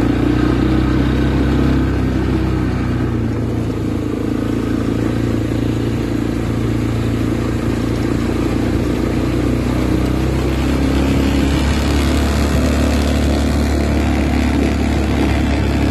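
Quad bike (ATV) engine running steadily while the bike is ridden along, with a constant rushing noise over it.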